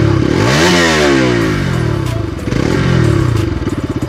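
Bajaj Pulsar RS200 BS7 motorcycle's single-cylinder engine, recorded close up, revved twice: the pitch climbs and falls back each time before it settles to a pulsing idle near the end.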